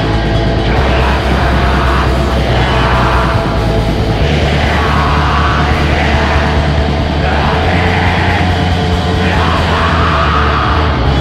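Heavy metal music: a dense, loud wall of distorted guitars and drums, with harsh shouted vocals coming in roughly once a second.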